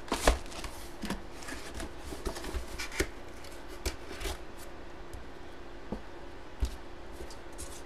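A cardboard trading-card box being handled and set down on a table: a sharp knock about a third of a second in, then scattered light taps and rubs.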